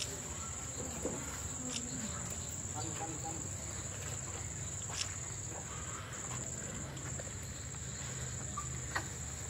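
Insects chirring: one steady high-pitched tone that barely breaks, over a faint low rumble.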